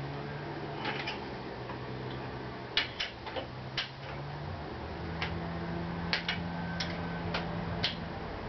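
About a dozen short, sharp clicks at uneven intervals from hand tools being worked on the motorcycle's fork clamp bolts, over a steady low hum.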